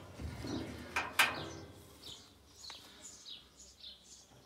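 Small birds chirping in the background, a run of short high falling chirps a few per second. Two sharp knocks in quick succession about a second in.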